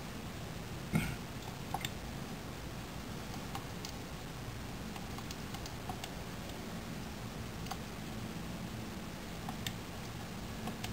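Scattered light clicks of game controller buttons being pressed, the loudest about a second in, over a steady low hum.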